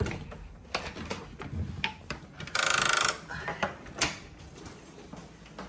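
A hotel room door being unlocked with a keycard and opened: a string of latch and handle clicks and knocks, with a loud buzz of about half a second from the electronic card lock a little before the middle, then another sharp click.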